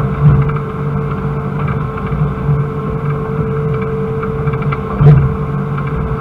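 Excavator's diesel engine and hydraulics running steadily under digging load, heard from inside the cab, with a constant whine over the engine's rumble. A single sharp knock about five seconds in.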